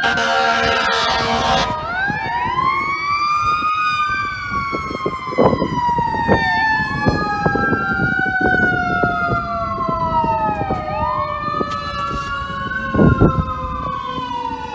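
Arriving fire engines' sirens. One wails up and down about every four to five seconds while another holds a tone that falls slowly throughout. A loud air-horn blast comes in the first couple of seconds, and there are a few short bumps later.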